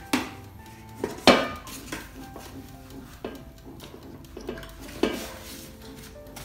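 An air fryer's removable pan and basket knocking and clattering as they are handled and set down: about five separate knocks, the loudest a little over a second in.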